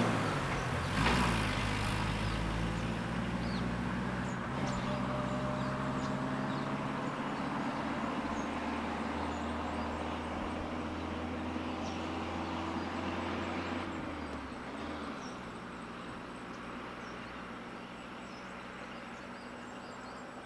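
Motor vehicle engines idling and running slowly nearby as a steady hum. The hum fades about two-thirds of the way through, leaving faint bird and insect calls.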